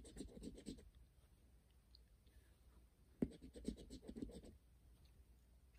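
A coin scratching the coating off a lottery scratch-off ticket: two short runs of quick, faint scratch strokes, one at the start and one about three seconds in that begins with a sharp click.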